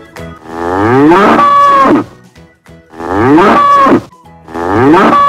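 Bull bellowing three times, each call rising in pitch from a low start and ending on a held high note.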